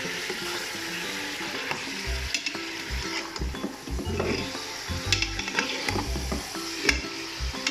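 Mutton pieces sizzling in hot cooking oil in a pressure cooker while a metal spoon stirs them, with scrapes and several sharp clicks of the spoon against the pot. This is the browning stage, frying the meat until it changes colour.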